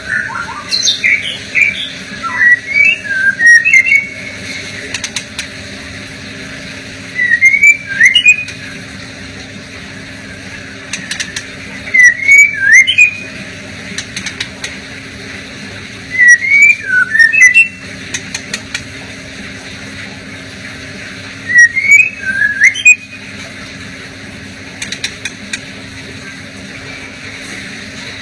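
Male white-rumped shama singing about five short bursts of quick whistled notes mixed with sharp clicks, one every four or five seconds, with pauses between them. A steady low hum runs underneath.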